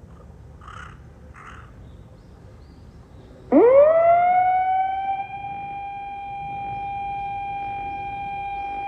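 Municipal disaster-prevention radio siren from outdoor TOA reflex horn loudspeakers. About three and a half seconds in it starts with a quick rise in pitch, then holds one steady tone that is loudest at first and then settles. It signals the start of the one-minute silent prayer.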